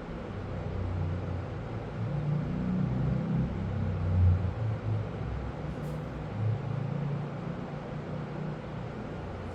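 A low rumble that swells over the first few seconds, peaks about four seconds in, then slowly eases off, with a faint tick about six seconds in.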